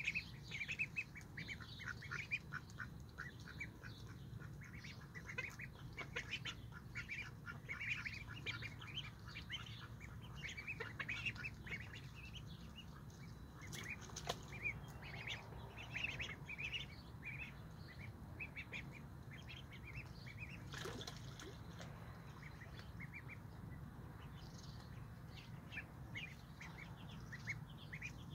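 Indian Runner ducklings peeping: many short, high-pitched calls in quick succession, busiest in the first half and thinning out later.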